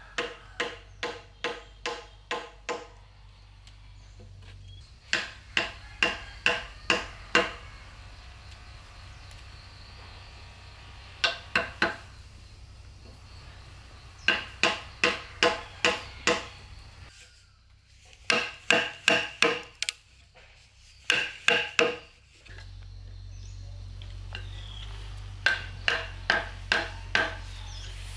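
A hammer driving nails: runs of three to seven ringing blows at about three a second, with short pauses between nails.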